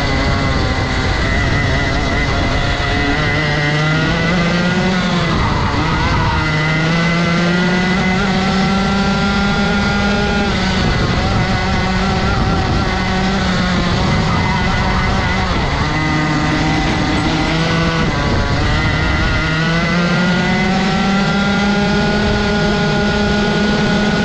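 Rotax 125 cc single-cylinder two-stroke kart engine at racing speed, its pitch climbing as it accelerates and dropping back when the throttle lifts, several times over.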